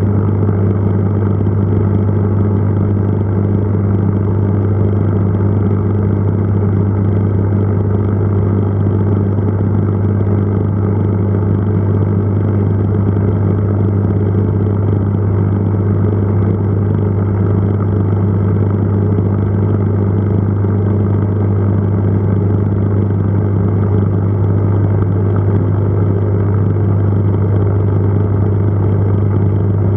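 Aquarium pump humming steadily: a constant low buzz with overtones and no change in level.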